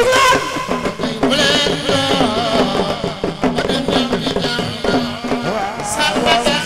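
A man singing a Mouride religious song (xassida) into a microphone with a wavering, ornamented melody, over steady drumming.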